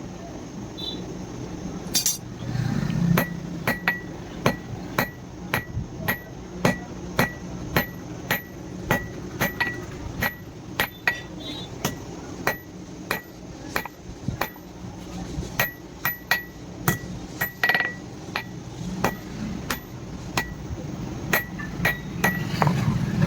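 A hand hammer striking steel on an anvil during forging, about two sharp, ringing blows a second that start a few seconds in and keep on steadily.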